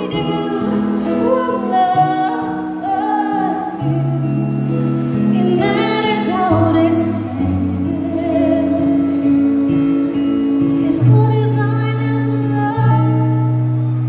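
A woman singing live into a handheld microphone over instrumental accompaniment, her melody moving over long held low notes.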